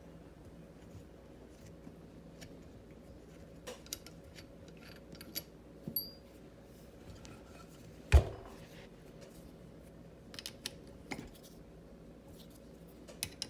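Small metallic clicks and taps as float-bowl bolts are unscrewed and handled on a Holley 4412 two-barrel carburetor. One loud thump comes a little past the middle.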